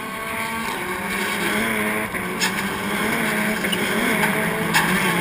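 Rallycross race car engines revving up and down through gear changes, growing louder as the cars approach, with a couple of sharp cracks.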